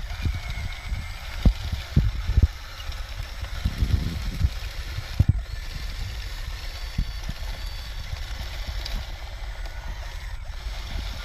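Radio-controlled model construction machines working dirt: a steady low rumble with scattered sharp knocks and thumps, the loudest about a second and a half, two and a half, and five seconds in.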